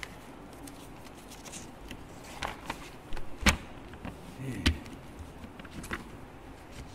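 A handful of sharp clicks and knocks at a lectern's microphone, the loudest about halfway with a dull thump, as papers and the microphone are handled.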